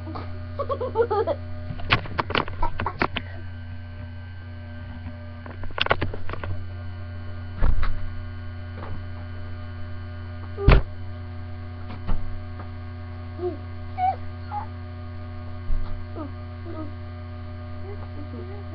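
Steady electrical mains hum on a webcam recording, with scattered knocks and rustles from movement near the microphone, including one sharp knock about eleven seconds in.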